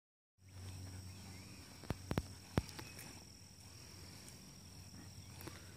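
Outdoor ambience of a steady high-pitched insect trill over a low hum, broken by four sharp clicks about two seconds in.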